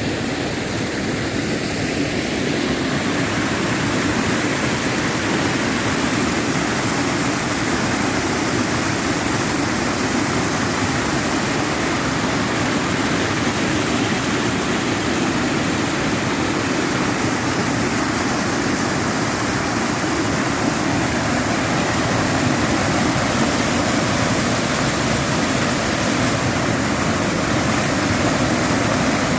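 A stream's water rushing and splashing in a steady flow.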